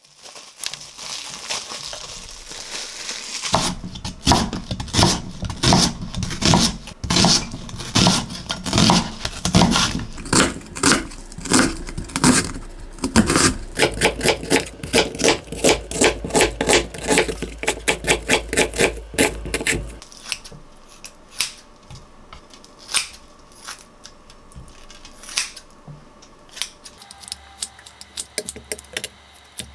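A kitchen knife chopping an onion on a wooden cutting board in quick, regular knocks. About two-thirds of the way through the chopping stops, and sparser snips follow as kitchen scissors cut raw chicken.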